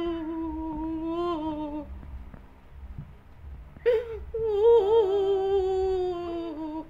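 A toddler whimpering in two long, drawn-out, wavering moans, the second starting about four seconds in: the sulky crying of a small child who has just been scolded.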